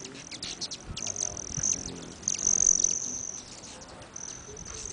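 Hummingbirds at feeders: a high, buzzing wing trill that comes and goes in bursts, mixed with many quick, sharp chip notes.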